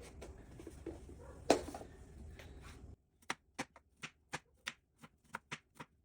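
Kitchen knife chopping an onion into small pieces on a cutting board: one sharp knock, then from about halfway in a run of short, even taps on the board, about three a second.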